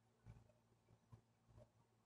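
Near silence, with about four faint soft clicks and smacks of a cat eating tuna from an open can.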